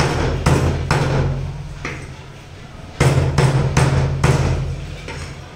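Large butcher's knife chopping raw chicken breast on a wooden log chopping block, in dull knocks: three or four chops, a pause, then another quick run of about four starting about three seconds in.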